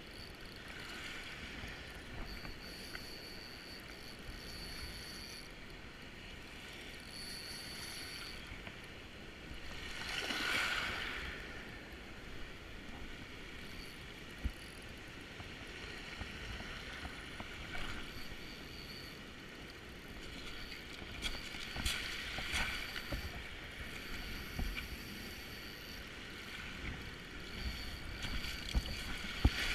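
River current and distant surf washing steadily, with a louder swell of water noise about ten seconds in and a few light clicks scattered through.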